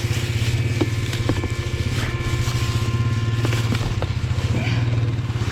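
ATV engine running at a steady speed, with a few light knocks and rattles over it.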